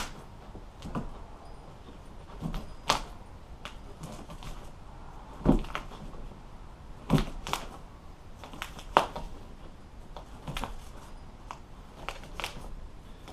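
Old vinyl upholstery being pried and pulled off a boat headrest's wooden base, staples popping out: irregular sharp clicks and snaps, about one every second.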